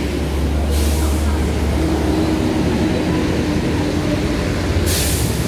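A motor vehicle's engine running close by in street traffic, a steady low rumble. Two short hisses cut through it, about a second in and near the end.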